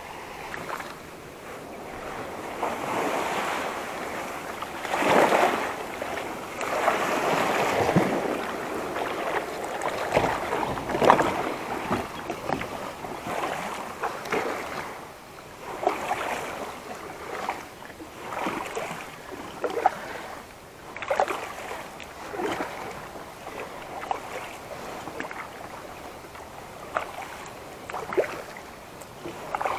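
Sea water splashing and lapping around a fishing kayak in irregular swishes, with small waves and wind buffeting the microphone.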